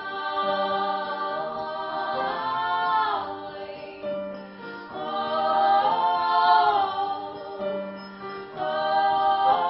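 Live acoustic performance of a song: sustained sung notes in vocal harmony over instrumental accompaniment, the voices sliding to a new chord about every three seconds.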